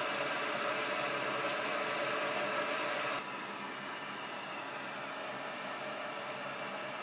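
Steady hissing noise with a few faint ticks or pops in the first three seconds. About three seconds in it cuts abruptly to a slightly quieter, duller hiss that carries on.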